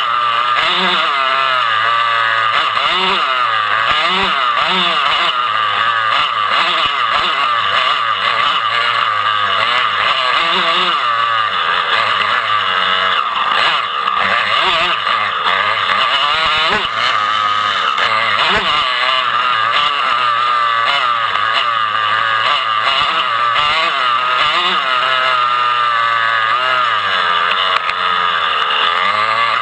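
Off-road dirt bike engine heard from on the bike, revving up and falling back over and over as the rider works the throttle and gears through the woods.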